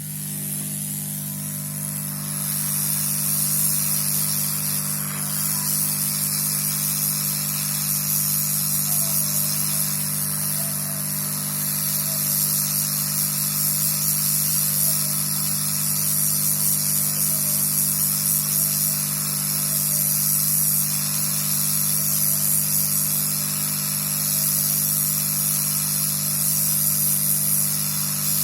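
Steady hiss of blowing air from a hot-air tool on a motherboard, over a steady low motor hum. It swells over the first couple of seconds, then holds.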